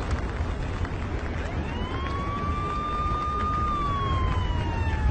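A siren wailing: its pitch rises about a second and a half in, holds, then slowly falls toward the end, over a steady low rumble.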